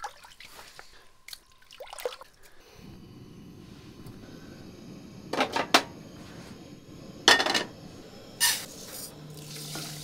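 Propane camp stove burner running with a steady hiss, with a few sharp metal clanks on the stove's grate. Water pours into a metal pot near the end.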